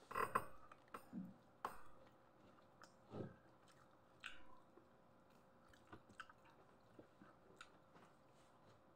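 Faint eating sounds: chewing with scattered soft clicks and taps, a handful in the first few seconds and fainter, sparser ticks after.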